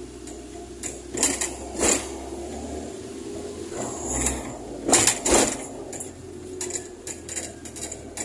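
A Fiat 147 race car's engine running at low speed, heard from inside the cabin. Several short, sharp noises cut across it, the loudest pair about five seconds in.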